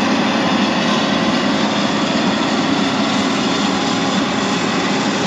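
John Deere combine harvester running close by, its diesel engine and threshing machinery giving a loud, steady noise with a low hum.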